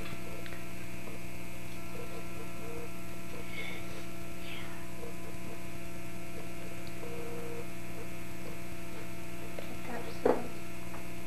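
Steady electrical mains hum, with faint small noises and a single short knock about ten seconds in.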